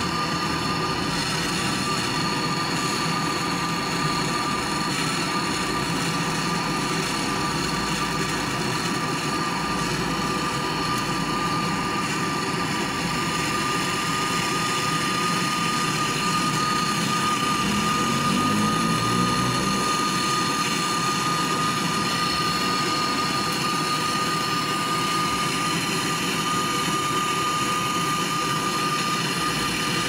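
MAP-gas hand torch burning with a steady hiss and a steady high whistle while it heats a copper pipe joint on a refrigerator compressor for brazing.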